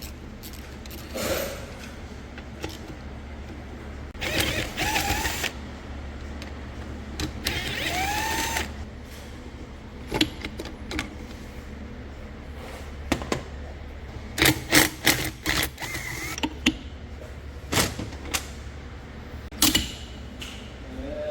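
Clinks and knocks of metal transmission parts being handled on a bench during teardown, over a steady low hum. There are two brief squeaks that rise and fall in pitch, and a quick cluster of knocks near the end.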